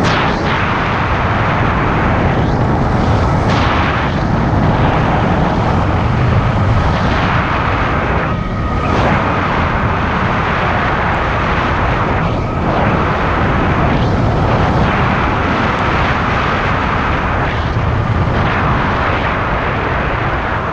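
Heavy wind rushing over the microphone while riding an electric bike at speed, with tyre and road noise and a faint steady whine underneath.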